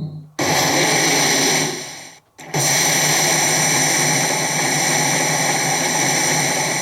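CR Tsurikichi Sanpei pachinko machine giving out a loud, steady, noisy hiss with held tones over it, which cuts out briefly twice, just after the start and again a couple of seconds in.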